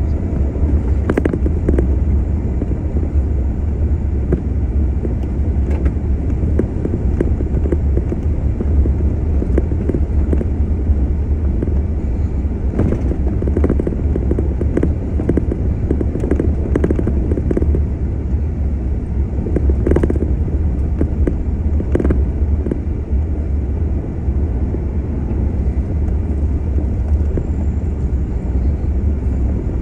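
Vehicle driving over a gravel road: a steady low drone of engine and tyres, with a few short knocks from bumps along the way.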